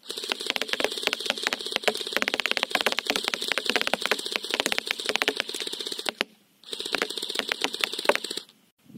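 Rapid ticking of airsoft BBs striking a cardboard target in two long bursts from a 3D-printed airsoft electric gun, the first about six seconds long and the second about two, split by a short pause. A steady buzz from the firing runs under the ticks and stops with them.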